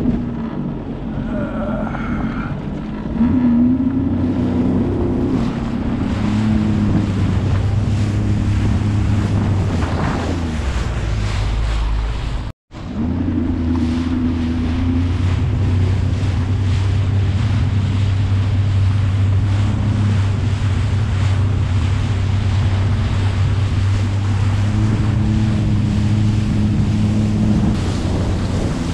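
Sea-Doo Fish Pro personal watercraft's 155-hp engine running under way. It throttles up about three seconds in and then holds a steady speed, with water rushing and spraying off the hull and wind on the microphone. The sound cuts out for a moment about twelve and a half seconds in.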